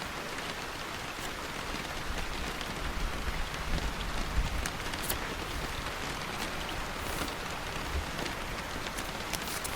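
Steady rain falling, an even hiss of drops, with a low rumble from about two to five seconds in and a few sharp ticks later on.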